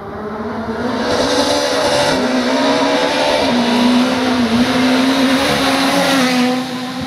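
R5-class rally car approaching flat out on a cobbled stage and passing close by about six seconds in. The engine note is held high, its pitch stepping up and down a few times as the sound builds to the pass and then falls away.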